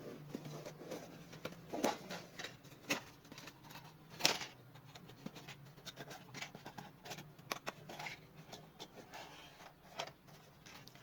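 Things being handled and moved by hand: irregular rustles, taps and light knocks, with one louder knock about four seconds in.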